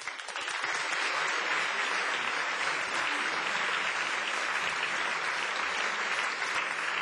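Theatre audience applauding at the end of a song: dense clapping that swells within the first second and then holds steady.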